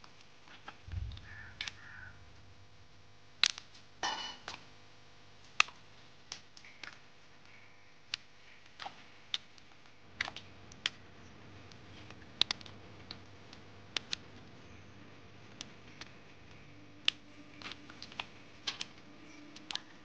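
Fresh turmeric rhizomes being snapped off a freshly dug root clump by hand: sharp, irregular snaps and clicks, with a brief rustle about four seconds in and a low thump about a second in.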